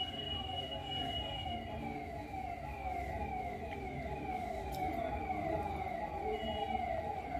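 A siren-like electronic wail: a tone that falls in pitch over and over, about twice a second. A steady high beep sounds alongside it for the first couple of seconds.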